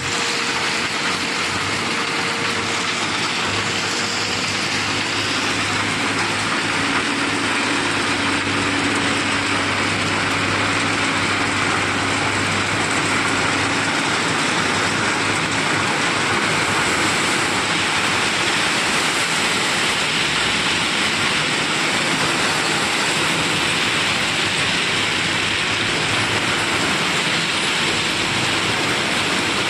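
Crushed stone pouring and sliding out of a tipping dump truck bed, a steady rushing hiss like heavy rain. A low hum from the truck runs underneath in the first half.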